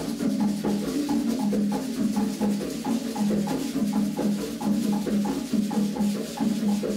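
Percussion music: drums with a clacking, rattling percussion line playing a steady, quick rhythm.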